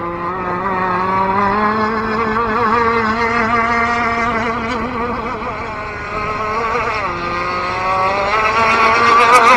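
Small two-stroke gas engine of a radio-controlled boat running at speed while the boat circles on the water, on a rough, near-stock carburettor tune. Its pitch wavers constantly, drops about seven seconds in, then climbs again as the boat comes back around.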